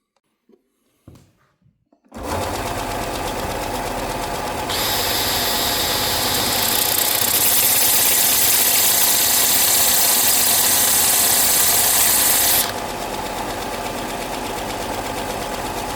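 A small electric power tool switches on about two seconds in and runs steadily. From about five seconds to about thirteen seconds it grinds against metal, louder and with a harsh high hiss, then runs on unloaded.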